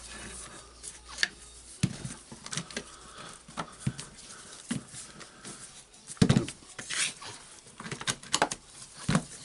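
Plastic clamshell housing of a Makita BHP452 cordless drill being fitted back together by hand, with irregular clicks, taps and handling rustles as the halves are pressed and seated over the new switch and wires. The loudest knocks come about six and seven seconds in.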